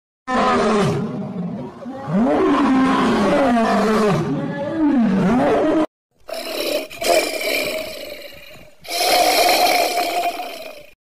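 A large wild animal roaring, in two edited clips: first a run of calls that sweep up and down in pitch, then, after a sudden cut, two long calls of about two seconds each.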